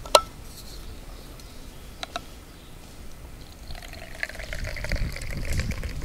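Sharp clicks as a thermos and its cup are handled, twice in quick pairs. From about four seconds in, hot tea is poured from the thermos into its cup.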